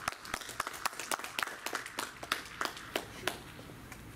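Sparse applause from a small audience, a handful of people clapping, dying away about three seconds in.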